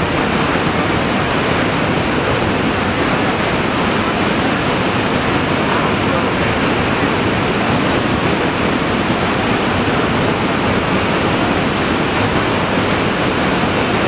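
Niagara Falls' water crashing onto the rocks at its base: a loud, steady rush of falling and churning water with no let-up.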